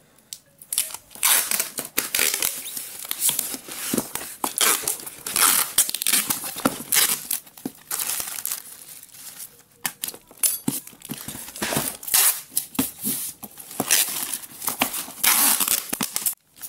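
Plastic packing tape pulled off the roll in repeated loud rips and pressed onto a cardboard box, sealing the package.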